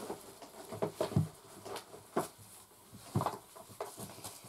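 Hands rummaging through a parcel of cosmetics: a few scattered light knocks and clicks of packaged products against each other, with soft rustling in between.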